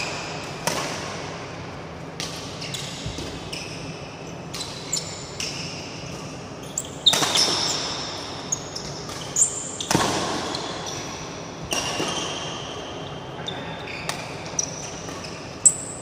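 Badminton rally: sharp smacks of rackets striking the shuttlecock at irregular intervals, mixed with short high squeaks of shoes on the court mat, with echo from the hall.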